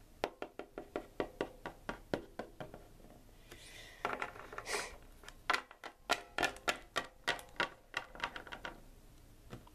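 Plastic Littlest Pet Shop figurines hopped across a tabletop by hand: a quick series of light taps, several a second, like footsteps, with a short pause about three seconds in.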